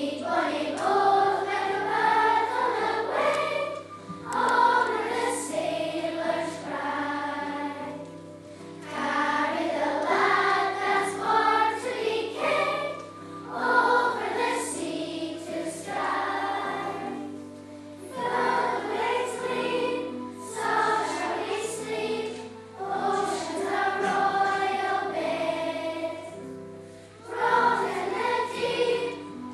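Primary-school children's choir singing together, sung phrases with short breaks between them.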